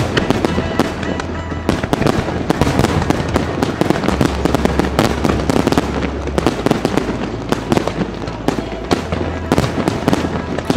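Aerial fireworks display: a dense, continuous run of bangs and crackles, with music and its bass notes playing underneath.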